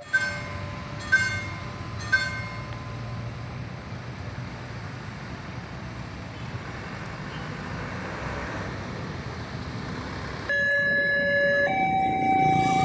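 Three sharp ringing strikes about a second apart, then a steady low rumble. About ten and a half seconds in, a railway level crossing's new electronic warning siren starts abruptly, alternating between a lower and a higher tone, each held a little over a second.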